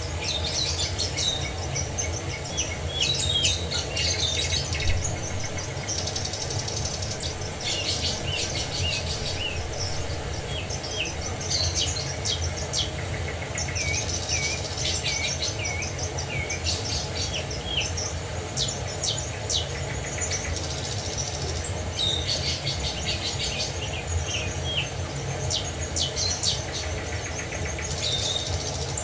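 Several songbirds chirping and singing in quick, overlapping phrases of short high notes and downward-sweeping whistles, over a steady low rush of water.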